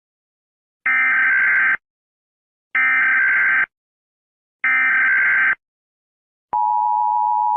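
Emergency Alert System alert opening: three buzzing digital SAME header bursts of about a second each, evenly spaced, then the steady two-tone EAS attention signal starting about six and a half seconds in.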